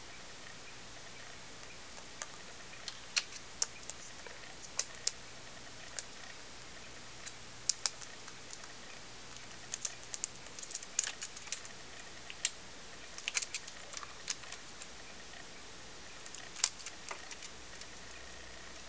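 Computer keyboard keys clicking irregularly under a cockatiel: scattered single clicks and short quick flurries, over a faint steady hum.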